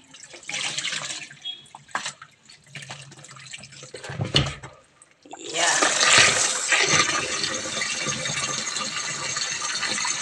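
Irregular splashes and knocks as a plastic tub of soaked beans is handled at a sink. About five seconds in, a kitchen tap comes on and runs steadily into the tub, filling it over the beans for a rinse.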